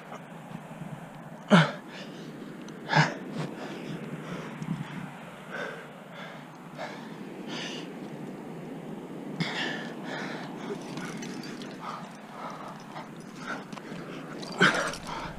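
A rock climber breathing hard while jamming up a crack: two sharp, forceful exhales about one and a half and three seconds in, then quieter panting breaths.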